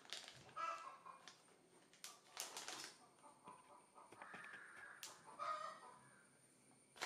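Faint crinkling of a plastic-wrapped switch plate pack being handled, with short bird calls in the background about a second in and again near the end.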